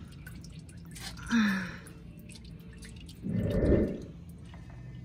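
Used motor oil dripping from the oil-filter area into a drain pan as the engine oil drains. A short voice-like sound comes about a second in, and a louder dull knock or rustle near the end.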